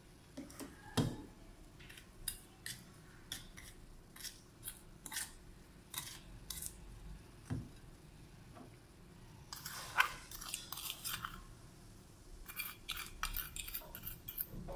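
Steel spoon stirring and scraping a thick sugar-and-lemon dough in a stainless steel bowl: scattered short clicks and scrapes, busier in the last few seconds.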